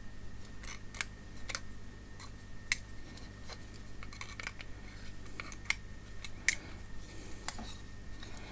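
Scattered sharp clicks and taps of steel needle-nose pliers working at a circuit board inside a plastic dome camera housing, with two louder clicks about a third and three quarters of the way in, over a faint steady hum.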